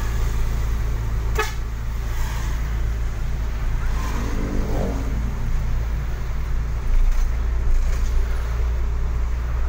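Steady low drone of a moving truck's engine and road noise heard inside the cab, with a vehicle horn tooting once, briefly, about four seconds in, and a sharp click a little over a second in.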